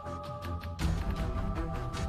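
Background music with held tones over a steady beat, shifting to a fuller, bass-heavy passage a little under a second in.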